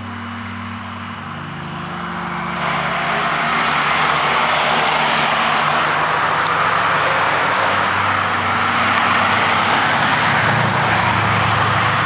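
Subaru WRXs driving past at speed on a narrow paved road: a steady engine note at first, then a loud rush of engine, exhaust and tyre noise from about three seconds in as the cars go by one after another.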